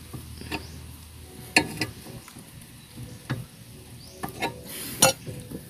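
Metal hand tools clinking and knocking as they are handled on the ground: a series of separate sharp metallic clinks, some ringing briefly, the loudest about a second and a half in and near the end, with scraping between them.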